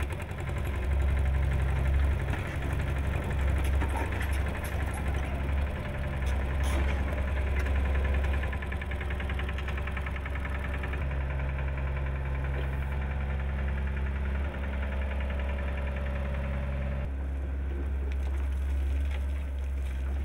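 Construction machinery running steadily: a compact excavator's diesel engine and a vibratory plate compactor, a continuous low engine drone whose character changes near the end.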